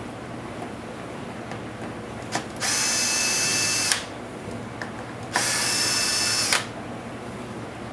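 A small electric screwdriver runs in two bursts of about a second and a half each, with a steady whine, driving out laptop case screws. Light clicks and taps fall between the bursts.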